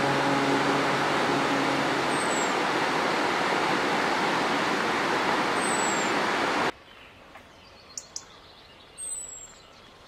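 Steady rush of a waterfall, with a few short high bird chirps over it and the tail of music fading out in the first two seconds. The water sound cuts off abruptly about seven seconds in, leaving quiet ambience with a couple of faint clicks and one more chirp.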